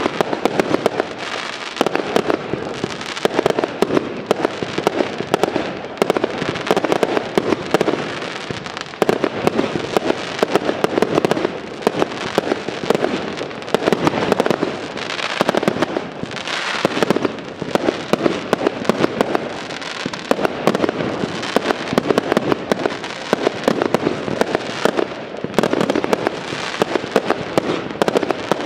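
Aerial fireworks display: a dense, unbroken barrage of shell bursts and sharp bangs, several a second, with crackle between them.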